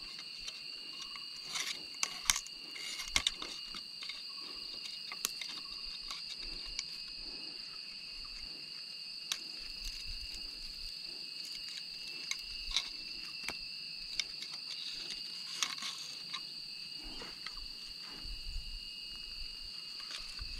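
Steady high drone of insects in the forest canopy, with scattered sharp clicks and knocks of bamboo and cord being handled against the tree trunk, the loudest a couple of seconds in.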